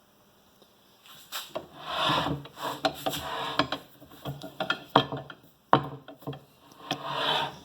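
Carl Froh 125R bench vise being turned by hand on its swivel base: an uneven dry rubbing and scraping of cast iron, with a few sharp clicks, starting about a second in. The base turns freely.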